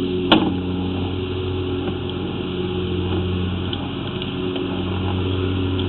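An engine running steadily, a low, even hum, with a single sharp click about a third of a second in.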